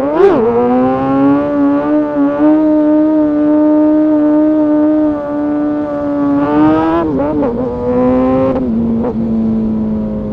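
Kawasaki ZX-6R inline-four sport bike engine under way: revs rise sharply at the start, then hold steady and high for several seconds. Around seven seconds the revs wobble with quick throttle changes, then drop near the end and settle at a lower steady pitch.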